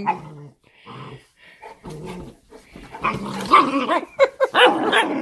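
Cane Corso mother and puppy wrestling: growling and barking, sparse at first, then dense and loud from about three seconds in.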